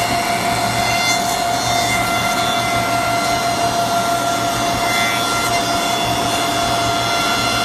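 Four-sided wood planer (moulder) running steadily while a strip of wood feeds through and is planed, with a constant whine from its motors and cutterheads over dense machine noise.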